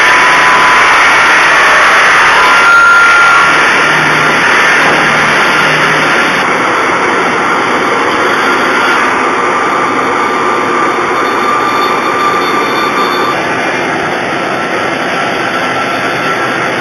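TsMD-150 multi-rip saw running: a loud, steady machine noise with a faint whine, easing slightly after about three seconds.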